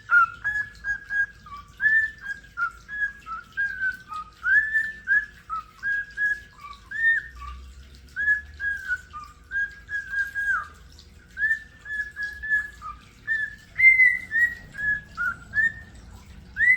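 Male cockatiel whistling a song: a long run of short, clear whistled notes, each rising and falling, strung together in quick repeated phrases.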